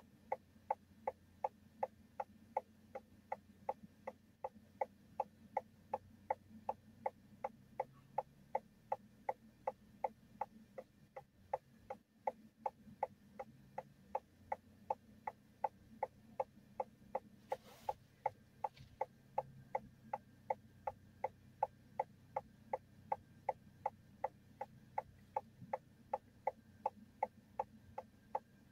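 A car's turn-signal indicator ticking steadily inside the cabin, about two and a half clicks a second, over a faint low hum from the idling car.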